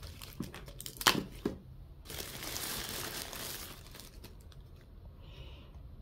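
Crinkling and rustling of a thin white wrapping sheet as a small plastic gadget is unwrapped by hand. There are a few sharp handling clicks in the first second and a half, then a denser stretch of crinkling for about two seconds that fades out.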